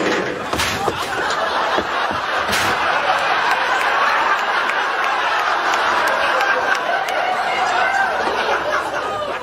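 Sitcom studio audience laughing steadily at length, the laughter thinning out near the end, with a couple of brief knocks in the first few seconds.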